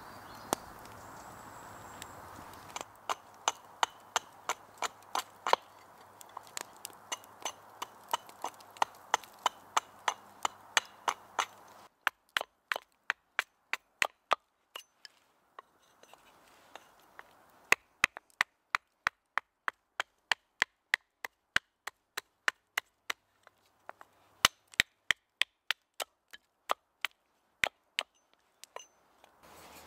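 Small axe chopping and shaving a piece of wood into a spatula, the blade biting into the wood against a chopping block. It goes in sharp chops about twice a second, with short pauses, after a few seconds of soft hiss.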